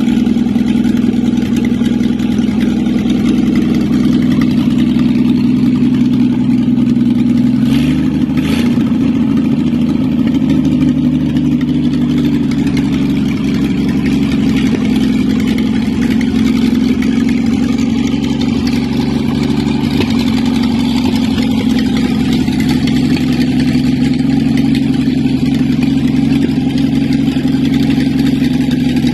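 GMC 270 straight-six petrol engine idling steadily, running again after a long lay-up. About eight seconds in its note briefly changes, and it then idles a little faster.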